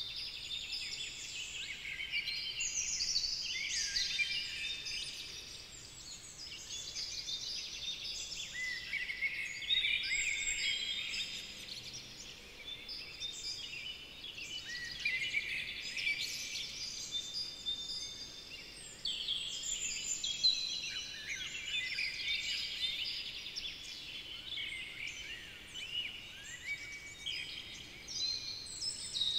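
Several songbirds singing at once, a dense chorus of overlapping warbling phrases with no break, over a faint steady hiss.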